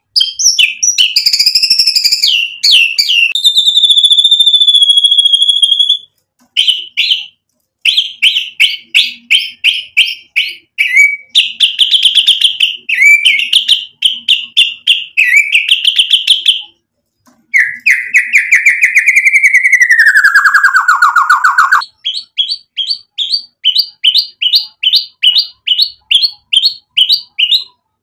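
White-rumped shama (murai batu) in loud, varied full song: whistled phrases and fast trills, broken by two short pauses. About two-thirds through comes a long falling whistle, then a run of sharp repeated notes, about two or three a second, to the end.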